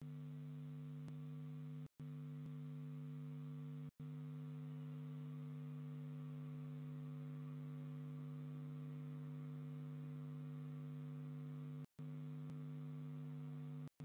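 Steady electrical hum from a nest-box camera's audio, a low drone with a few fixed tones, cutting out briefly three times.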